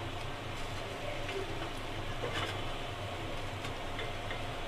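A few faint taps and scrapes of a silicone spatula stirring chocolate and butter in a glass bowl, over a steady low hiss and hum from the double boiler on the gas stove.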